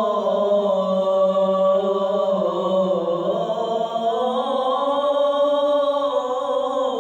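A male muezzin calling the adhan, holding one long melismatic note within the line 'ashhadu an lā ilāha illā Allāh'. His pitch dips about halfway through and climbs back, with wavering ornaments.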